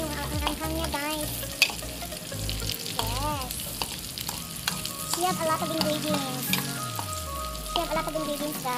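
Chopped onion, garlic and sliced chillies sizzling in hot oil in a metal wok, stirred with a metal spoon that clinks and scrapes against the pan, with one sharp clink about one and a half seconds in.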